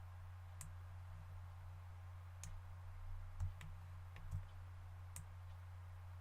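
Computer mouse clicking, a handful of short sharp clicks at irregular moments, over a steady low electrical hum.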